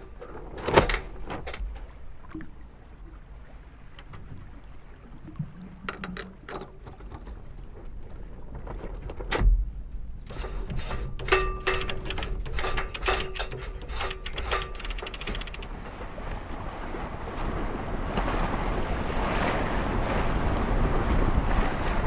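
Foley of sailboat deck hardware on a Hunter 41: scattered clicks and knocks, then a quick run of clicks with a faint steady tone about halfway through. A rushing noise builds over the last several seconds.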